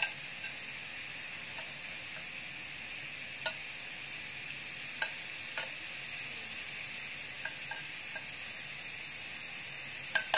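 Steady hiss from the gas stove, with a few light clicks of a steel spoon against the oil container and an iron kadhai as oil is spooned into the pan.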